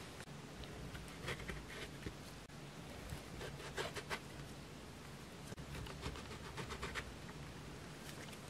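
A round metal cutter pressed through a thin egg sheet onto a bamboo cutting board, with gloved hands handling the cut discs. It gives three short runs of faint taps and scrapes.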